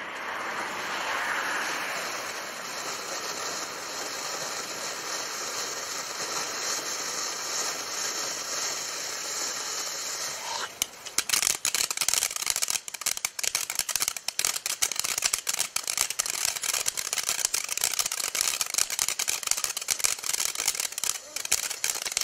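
Ground firework fountain hissing steadily as it sprays sparks, then switching about halfway through to a dense, fast crackle of crackling stars.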